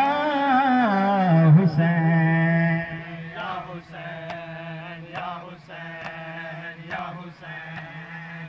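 A man chanting a Muharram noha into a microphone, his voice gliding over a steady low drone; about three seconds in the voice drops away and regular sharp strikes come about once a second, the beat of mourners' matam.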